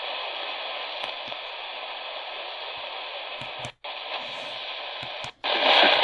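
Midland ER10VP radio's small speaker hissing with AM-band static between stations, cutting out briefly twice as the tuning is stepped up. Just before the end a talk station comes in, a voice speaking over the static.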